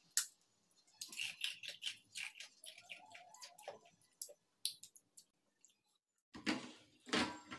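Ice being crunched between the teeth, with short sharp clicks of ice pieces against a brass plate as more are picked up. Near the end comes a louder, rougher stretch of crunching and scraping.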